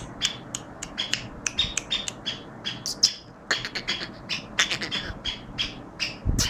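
Caged black francolin giving a rapid, uneven series of short, high chirping calls, several a second.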